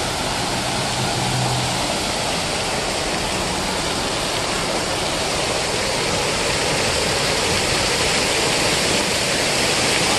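Fountain water jets arching over a footbridge and splashing down: a steady rushing splash that grows slightly louder in the second half.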